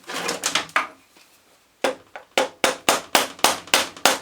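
Repeated sharp metal knocks on a starter motor housing as its body is worked loose: a brief clatter at the start, then from about two seconds in a steady run of blows, about four a second.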